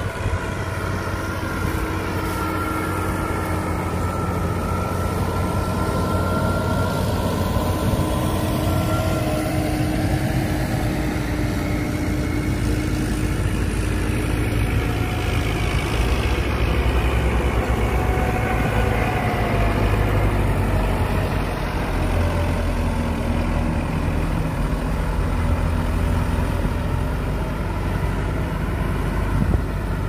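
Diesel farm tractor engine running steadily while pulling a plough, its pitch wavering only a little.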